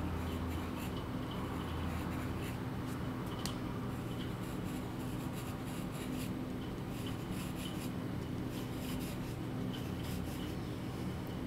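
Pencil scratching on drawing paper in short, quick strokes, over a steady low hum.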